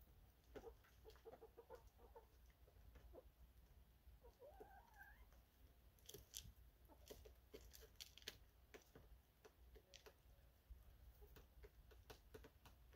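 Hens clucking softly and faintly: a run of short clucks, then a rising call about five seconds in, with scattered sharp clicks in the middle of the stretch.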